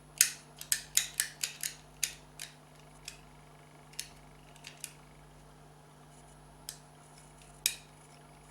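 Small hard clicks and taps from handling the parts of a disassembled reverse light switch with fingers and tools: a quick run of about eight in the first two and a half seconds, then a handful of scattered single clicks, one louder near the end.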